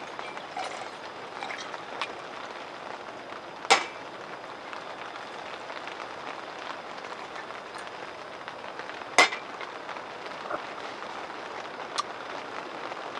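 Whiskey is poured briefly into a stainless steel tumbler. Then come two sharp clinks, about five and a half seconds apart, and a lighter one near the end, as the glass bottle and the tumbler are set down on a metal wire rack. A steady hiss runs underneath.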